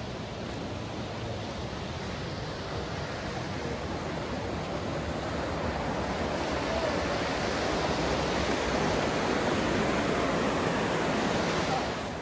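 Johnston Creek rushing through the canyon below: a steady roar of fast water that grows louder midway and falls away just before the end.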